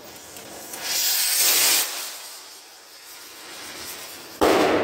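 World Class 'Lite Em Up' firework rocket launching with a loud hiss that lasts about a second, then a single sharp bang near the end as it bursts.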